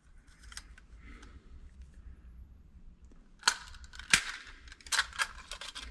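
A few sharp metal clicks and clinks from handling a drill and its bits while a drill bit is chosen and fitted. The loudest clicks come about three and a half and four seconds in, with smaller ones near the end.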